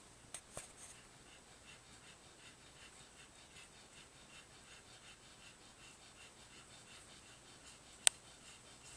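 Faint, quiet breathing of a sleeping pet, with two small clicks near the start and a sharp click about eight seconds in.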